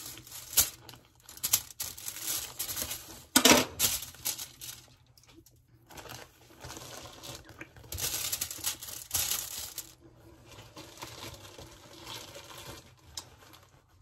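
Knife cutting and hands pulling apart crusty ciabatta rolls on aluminium foil: bread crust crackling and tearing and foil crinkling in scattered bursts, the loudest a sharp crackle about three and a half seconds in.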